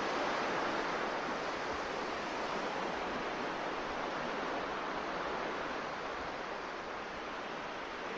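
Steady rushing noise, like ocean surf or pink noise, with no melody or beat; it eases off slightly toward the end.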